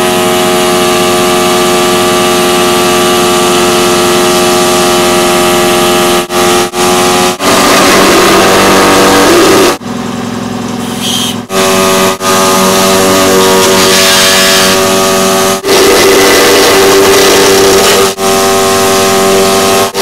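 Small compressed-air saw running with a steady, high whine as it cuts a plastic bottle. The sound cuts out and comes back several times as the trigger is released and squeezed again, with a longer pause about ten seconds in.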